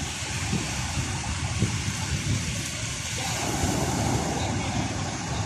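Sea surf washing onto the beach in a steady roar of noise with a low rumble underneath; a breaking wave swells louder from about three seconds in.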